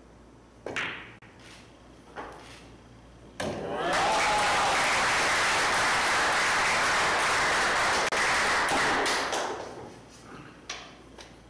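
A pool shot: a sharp clack of billiard balls about a second in and a second knock a moment later, then applause for about six seconds before it fades out.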